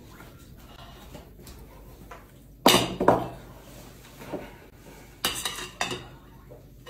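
Ceramic plates set down on a dining table: two loud clattering knocks close together a little under three seconds in, then two more a little past five seconds.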